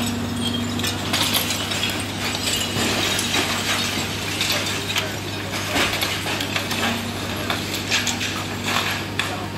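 Long-reach demolition excavator at work: a steady low engine hum under irregular cracks, clinks and clatter as its hydraulic crusher jaw breaks concrete and debris falls.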